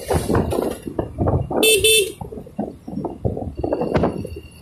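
A motorcycle horn beeps twice in quick succession, a short double toot, over wind buffeting on the microphone and the rumble of the moving motorcycle.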